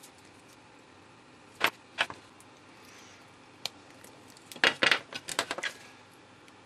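Handling clicks and taps on a small plastic gas-sensor cell: a few sharp separate clicks, then a rapid run of them in the second half.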